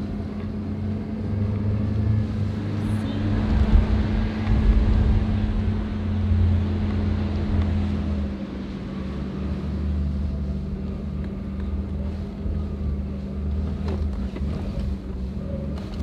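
Toyota Prado four-wheel drive driving through soft sand, heard from inside the cabin: a steady engine drone with heavy low rumble from the tyres and body, swelling a few seconds in.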